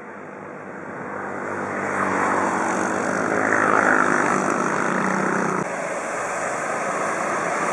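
An engine running steadily and growing louder over the first few seconds, over a haze of wind or road noise; the sound changes about five and a half seconds in.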